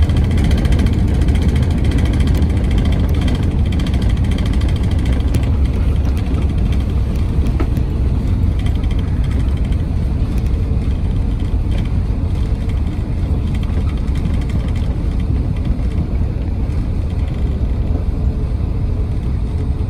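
Airbus A380 cabin noise during the landing rollout on a wet runway: a steady, heavy rumble from the engines at idle reverse and the wheels on the runway, easing slightly as the aircraft brakes.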